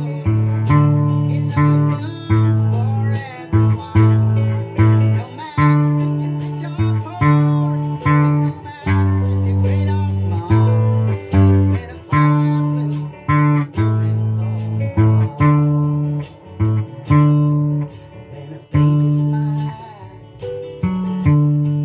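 Octave ukulele tuned EADG like a bass guitar, plucked in a bass line of low single notes, one to two a second, each starting sharply and dying away.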